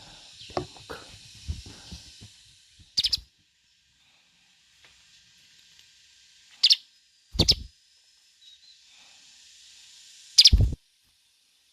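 Wild birds giving short, sharp high calls about four times over a steady high hiss of forest insects. The last two calls come with a low thump.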